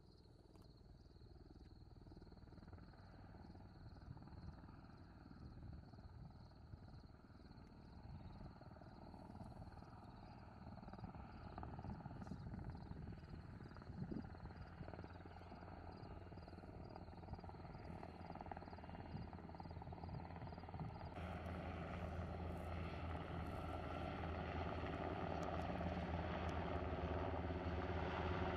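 U.S. Navy Seahawk helicopter approaching, its rotor and turbine noise growing steadily louder. Faint rhythmic insect chirping runs underneath until about two-thirds of the way through.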